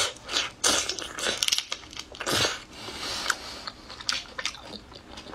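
Crunching and chewing of a whole shell-on shrimp: several sharp crunches of the shell over the first three seconds or so, then softer chewing and small clicks.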